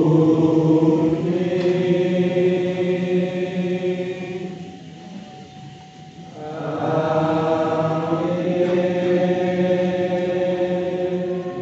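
A group of low voices chanting together in unison, in long drawn-out held phrases: one phrase fades out about five seconds in and a second one starts a second or so later.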